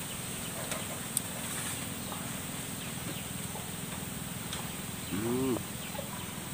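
A man's short closed-mouth "mmm" hum, rising then falling in pitch, about five seconds in, as he reacts to the sourness of a lime slice with chili salt. Faint mouth clicks and a steady low background hum run under it.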